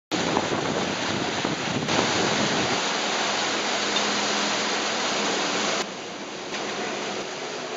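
Rushing water of the wake churning behind an Artnautica LRC58 powerboat under way, mixed with wind on the microphone. The rushing drops to a quieter level about six seconds in.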